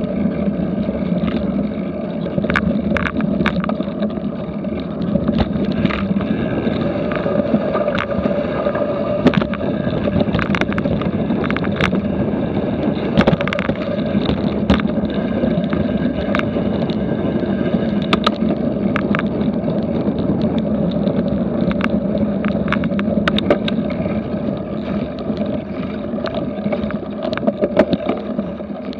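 Cyclocross bike riding over a dirt and leaf-covered trail, heard from a camera mounted on the bike: a steady rumble from the tyres and bike, with frequent sharp clicks and rattles.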